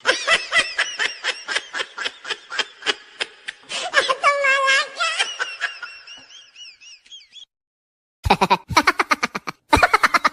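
Laughter sound effect: a long run of rapid, rhythmic laughing that fades away, then after a short silence a second, different laugh starts near the end.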